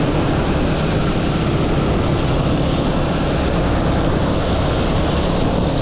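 Steady wind rush over the microphone of a moving motorbike, with its engine running evenly underneath.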